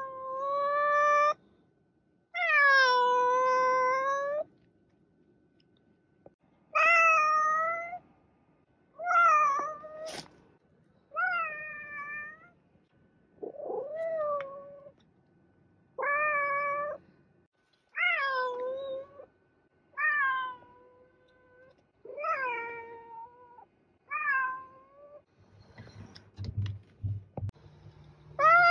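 Domestic cat meowing over and over: about eleven drawn-out meows of a second or two each, spaced a second or so apart. There is a sharp click about a third of the way through and a few low knocks near the end.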